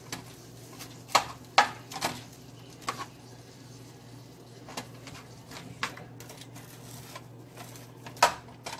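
Plastic spatula knocking and clicking against a nonstick frying pan as onion, spinach and chicken are stirred, in scattered irregular knocks, the loudest about a second in and near the end, over a faint steady low hum.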